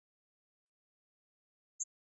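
Near silence, with one very short, high-pitched blip near the end.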